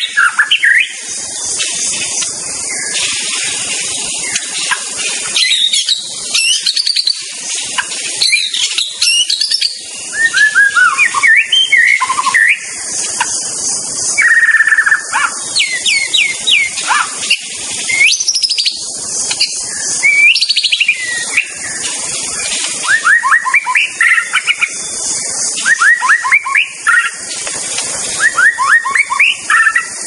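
White-rumped shama (murai batu) singing: varied phrases of clear whistles, quick down-slurred notes and rapid trills, in bursts a second or two long with short pauses between, over a steady high hiss.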